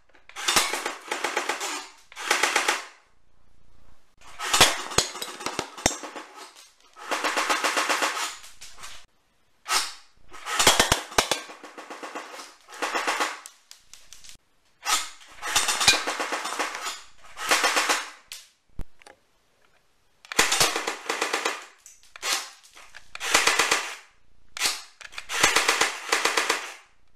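Electric airsoft gun firing full-auto in repeated bursts, each about half a second to two seconds long, with short pauses between them.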